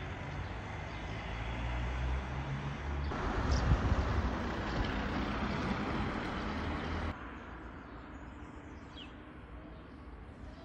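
Outdoor street ambience: a steady rushing noise with a low rumble, loudest in the middle and dropping off abruptly about seven seconds in. What remains is quieter ambience with a bird chirping once.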